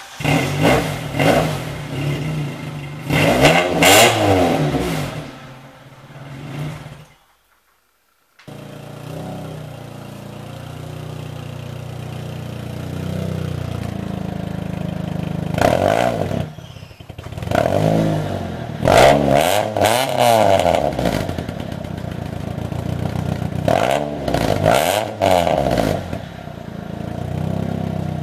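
Nissan Sentra B13's four-cylinder engine revved a few times through an exhaust with a hole scraped in it. After a short break it idles and is revved three times through the repaired exhaust, with a straight pipe in place of the catalytic converter.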